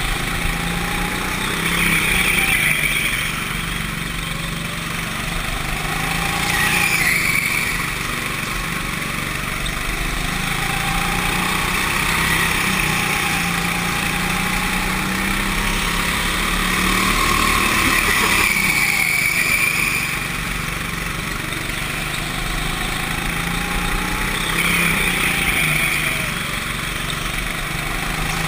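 Go-kart engine running at speed, its pitch climbing as it accelerates and dropping off as it slows for the corners, over and over through the lap.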